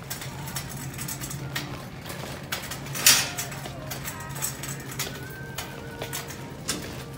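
Wire shopping cart rattling and clinking as it is pushed along, with a louder clatter about three seconds in, over a steady low hum.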